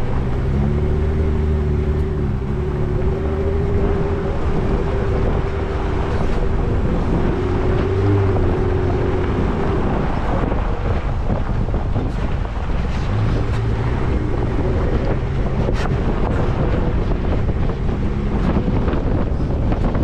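Off-road 4x4 driving a dirt track, with heavy wind noise buffeting the side-mounted microphone. An engine hum wavers up and down through the first half, then fades into the wind and road noise.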